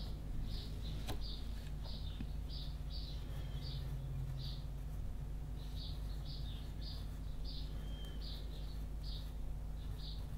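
Pencil scratching short, quick strokes on paper, about two a second and unevenly spaced, as small scale shapes are drawn, over a steady low hum.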